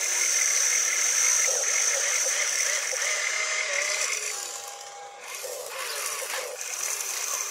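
A toy RC excavator's small electric motors whine as it digs, lifts and swings its bucket, the pitch rising and falling as each motion starts and stops. A high steady whine runs through the first half and dies away about five seconds in.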